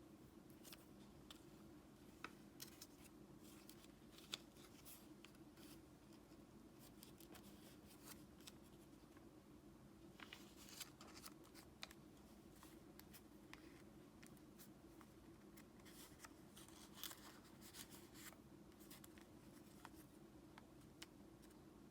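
Faint paper rustling and creasing of origami paper being folded by hand: scattered soft clicks and scratches, busier about halfway through and again later, over a low steady hum.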